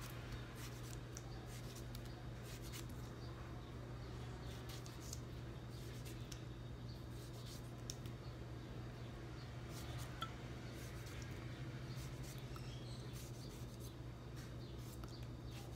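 Knife slicing through a tomato held in the hand, small faint cuts, scrapes and clicks as the pieces drop into a wooden mortar, over a steady low hum.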